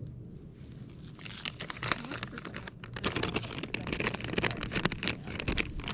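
Close-up crinkling of plastic and quick clicks of tackle being handled while a fishing lure is swapped. It starts about a second and a half in and gets busier after about three seconds.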